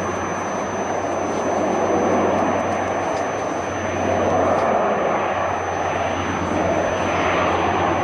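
Canadair firefighting water bomber flying nearby, its engines making a steady roar that swells and eases slightly.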